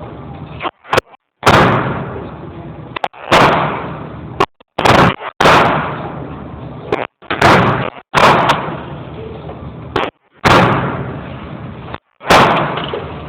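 A Ruger .22 handgun fired in single shots, about eight over the stretch, one every one to two seconds. Each shot is a sharp crack followed by a ringing, fading tail.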